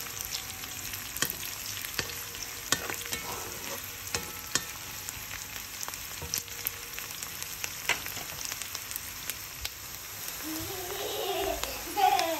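Sliced onion, garlic and green chillies sizzling in hot oil in a wok: a steady hiss with scattered crackles and clicks, as a wooden spatula stirs and scrapes the pan. Near the end a brief wavering pitched sound rises over the frying.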